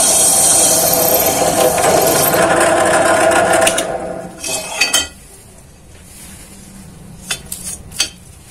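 Bench drill press bit cutting through a hollow square metal tube: a loud, steady grinding that dies away about four seconds in as the bit is withdrawn. After that come a few light metallic ticks as the tube is handled, over a faint low hum.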